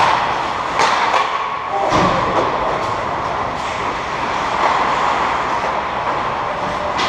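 Ice hockey skates scraping and carving on the ice, a steady rush of noise, with a few sharp knocks in the first two seconds.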